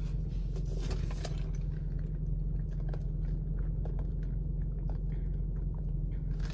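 Someone drinking from a plastic cup, with small scattered clicks and swallowing sounds over a steady low hum.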